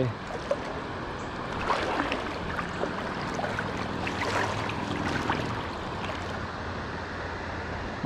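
Steady rush of flowing creek water, with a few faint light splashes.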